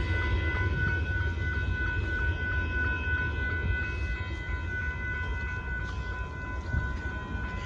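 A Union Pacific rock train's freight cars rolling past with a steady low rumble, and steady high tones sounding above it.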